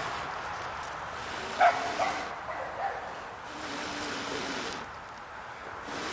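Long, steady breaths blown into a smouldering tinder bundle to bring a hand-drill ember up to flame, with two short pauses for breath. A brief high-pitched whine sounds about a second and a half in.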